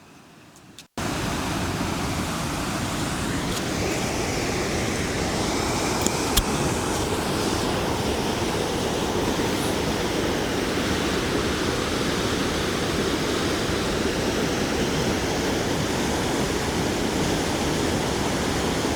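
River in spate rushing over rocks at close range: a loud, steady, raging water noise that starts about a second in. Two faint clicks sound near the middle.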